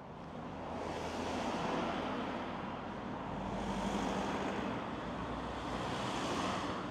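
Road traffic passing: the tyre and engine noise of cars swells twice, with a low engine hum under the second pass.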